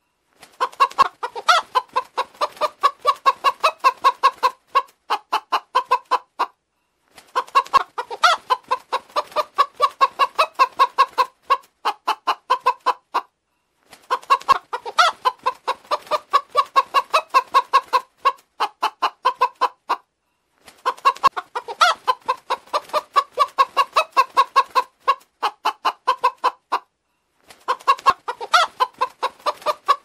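Domestic chickens clucking: rapid runs of short clucks, several a second, broken by brief pauses. The same run repeats about every seven seconds.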